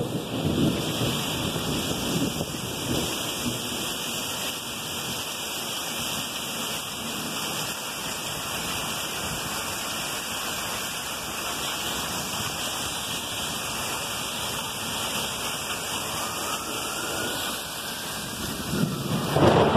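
Heavy Florida downpour pouring steadily in a thunderstorm, with rumbles of thunder swelling up about a second in and again near the end.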